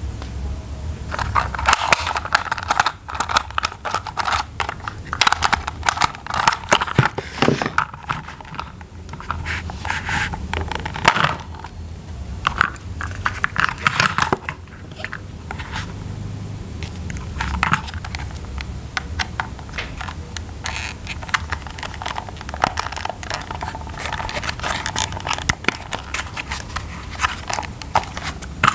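Hands handling plastic toy train parts and packaging: crinkling and scraping, with many irregular clicks and knocks.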